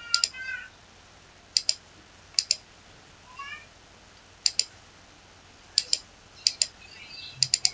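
Computer mouse clicks, mostly in quick pairs, about once a second while selecting lines and placing a dimension in a CAD sketch. Two brief rising squeaks sound faintly, one at the start and one about three and a half seconds in.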